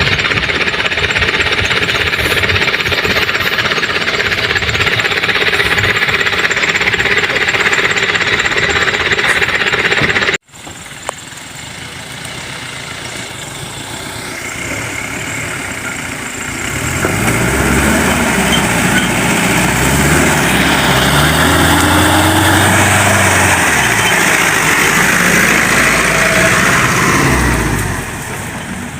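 A vehicle engine running hard, loud and rough. About a third of the way in the sound cuts abruptly to a quieter engine that builds up again, its pitch rising and falling as it revs.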